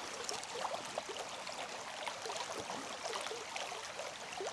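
River water flowing: a steady rush with many small gurgles.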